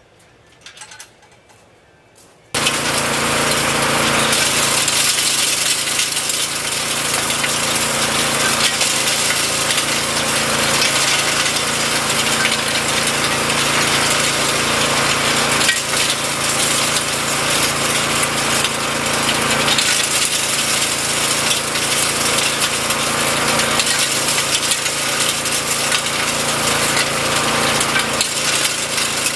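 Portable rock crusher running: a 6.5 hp engine spins eight chain hammers in a steel drum, pulverizing quartz rock into fine powder, a loud, steady noisy clatter with the engine's steady hum underneath. It starts suddenly about two and a half seconds in, after a short quiet stretch.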